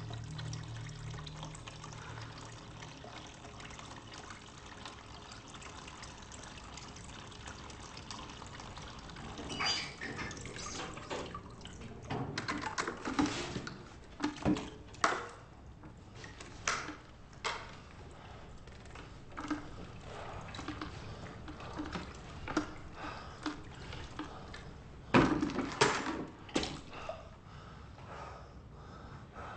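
Water running from a tap into a bucket, followed by scattered knocks and clatter as things are handled, the loudest a cluster of knocks about 25 seconds in.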